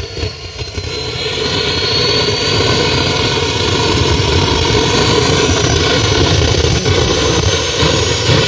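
Turbocharger-based model gas turbine engine running on a 10% mustard oil and diesel blend: a loud jet-like rush that builds over the first couple of seconds, with a thin high whine that rises steadily as the turbine spools up.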